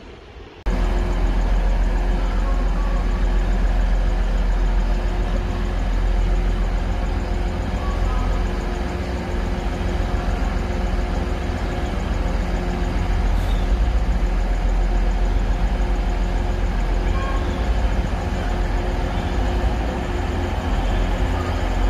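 Class 185 diesel multiple units running at the platform: a loud, steady low diesel rumble with a constant hum, starting abruptly about a second in.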